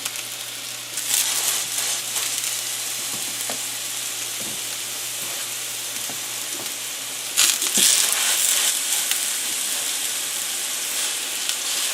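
Large ground-beef patties frying in olive oil in a hot pan: a steady sizzle that turns louder about a second in and again about seven seconds in.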